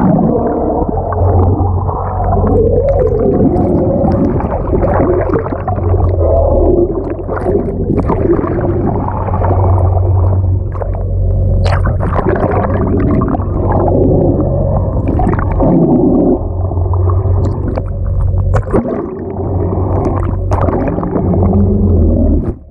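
Muffled underwater sound picked up through an action camera's waterproof housing: churning water and bubbles over a steady low hum that swells and fades, with a few sharp clicks.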